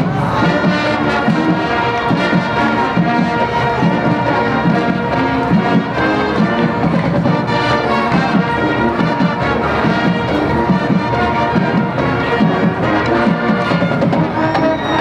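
Marching band playing, with brass carrying the melody over the band.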